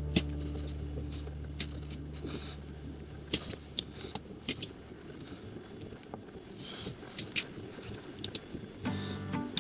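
Plastic LEGO Technic pieces clicking and rattling as they are handled and fitted together, in scattered single clicks. Background music fades out at the start and comes back near the end.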